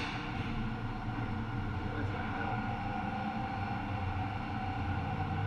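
Steady low mechanical hum of running machinery, with a short sharp sound right at the start.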